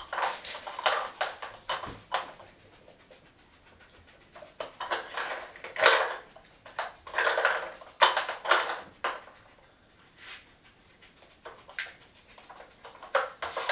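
A dog working a Dog Smart puzzle toy: snuffling with its nose on the board while the white plastic lids click and knock against the red plastic base, in irregular bursts with short pauses between.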